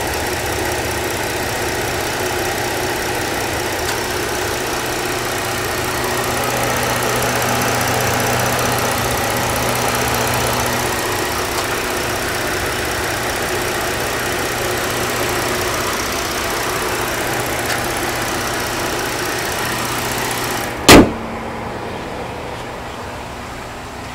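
Ford 3.5-litre V6 engine idling steadily under an open hood. Near the end comes one loud slam, the hood being shut, and the engine is quieter after it.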